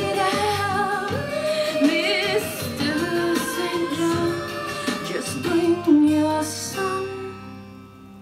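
Recorded song with a woman singing over keyboards and drums. It ends about seven seconds in, leaving a lingering low note.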